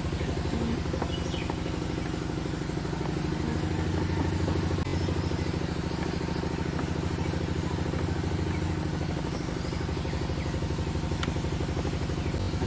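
An engine running steadily in the background, with an even, fast pulse and no change in speed.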